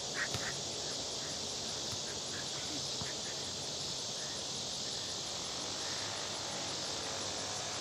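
Steady insect chorus, with a couple of faint short knocks just after the start.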